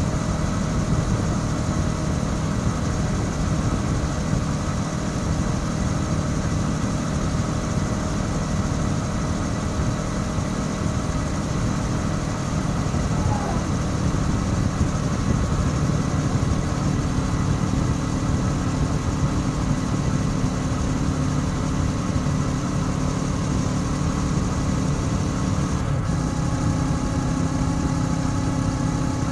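Kawasaki Ninja 650's parallel-twin engine running through its stock exhaust at a steady cruise, heard from on board with wind noise. Near the end there is a short break, after which the engine note settles at a different pitch.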